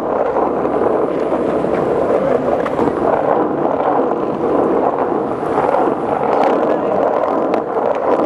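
Skateboard wheels rolling steadily over wet, rough asphalt, a continuous gritty rumble with scattered small ticks, mixed with wind on the microphone.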